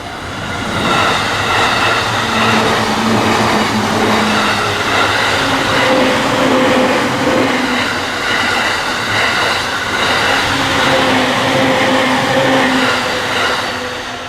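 A JR Takasaki Line train passing over a level crossing at speed: a steady rush and rumble of wheels on rails that builds about a second in and fades near the end.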